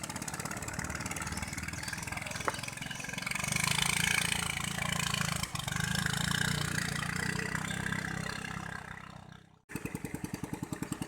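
Katinting canoe engine running steadily at speed, swelling louder for a few seconds and then fading away. After a sudden cut near the end, another engine puttering with distinct, evenly spaced firing pulses.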